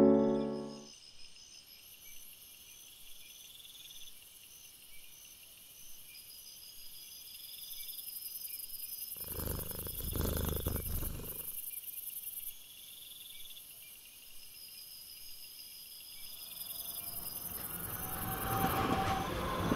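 Crickets chirping steadily in a rhythmic high trill. About halfway through a rushing noise swells for a couple of seconds. Near the end a train's running sound grows steadily louder as it approaches.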